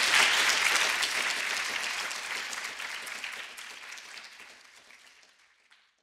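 Audience applauding: a dense patter of many hands clapping that fades away steadily and stops shortly before the end.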